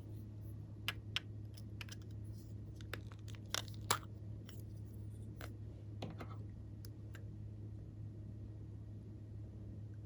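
Glossy slime being squeezed and worked by hand, giving scattered small clicks and pops, busiest in the first four seconds and sparse after that, over a steady low hum.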